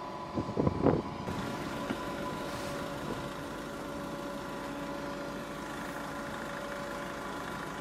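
Cummins diesel power pack of a Goldhofer self-propelled modular trailer running steadily under a heavy load, a hum with several steady tones. A few sharp knocks or clanks sound within the first second.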